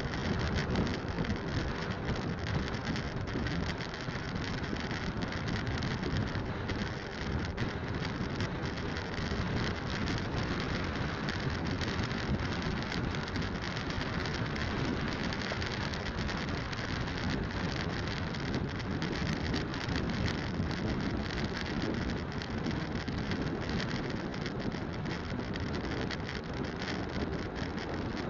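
Steady rush of wind on the microphone mixed with road and engine noise from a motorcycle riding along at a constant pace.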